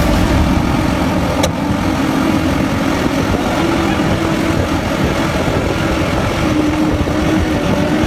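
SANY crawler excavator's diesel engine running steadily as its tracks work through mud and water, with a single sharp click about a second and a half in.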